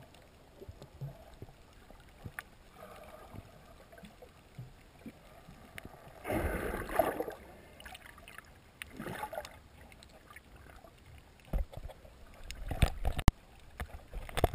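Muffled underwater sound picked up by a submerged camera: faint water noise, a louder rush of water about six seconds in lasting a second or so, a shorter one about nine seconds in, and several sharp knocks near the end.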